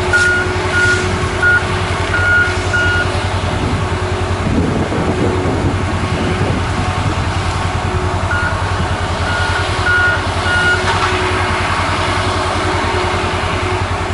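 Heavy logging machine, a feller buncher, with its diesel engine running steadily while its reversing alarm beeps in two spells of about five beeps, near the start and again about eight seconds in, as it backs up.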